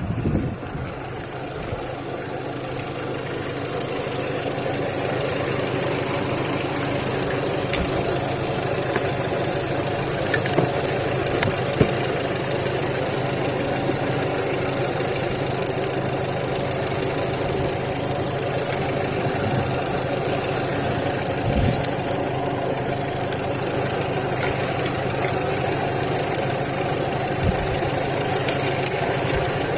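A vehicle engine running steadily, a little louder over the first few seconds, with a few faint knocks.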